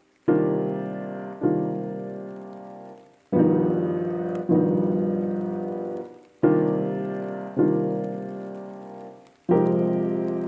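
Slow piano music played through a small portable speaker: sustained chords struck in pairs about a second apart, a new pair roughly every three seconds, each chord ringing and fading.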